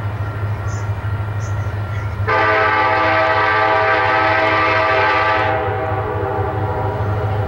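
Union Pacific locomotive's air horn sounding one long chord about two seconds in, lasting about three seconds before dying away, over a steady low rumble.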